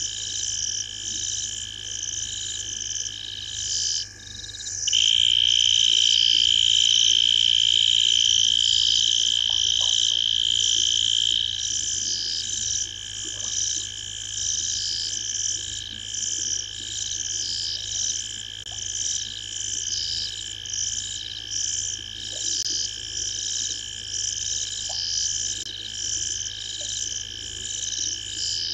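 Night chorus of frogs and insects at a waterhole: a steady high trill with a rhythmic pulsing chirp above it, repeating a little more than once a second. About five seconds in the trill swells louder for several seconds, then settles back.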